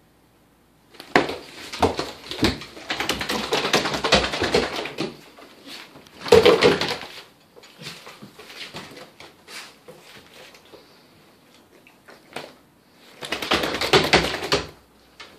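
Golden retriever shaking its head, its ears flapping in rapid rattling bursts, three times: a long bout starting about a second in, a short one about six seconds in, and another near the end. The dog is flinging out the ear medicine just massaged into an ear canal sore with an ear-mite infection.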